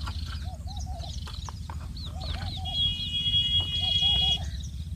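Birds calling over and over, short rising-and-falling notes in quick runs of three or four, over a steady low rumble. A steady high whistle holds for under two seconds midway.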